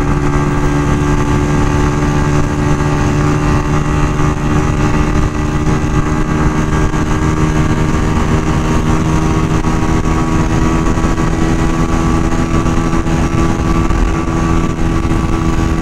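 Honda CG 125's single-cylinder four-stroke engine running at an unchanging pitch under way at highway speed, with a low rush of wind and road noise under it.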